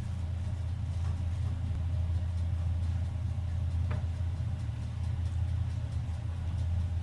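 A steady low mechanical hum, like a running motor, with one faint click about four seconds in.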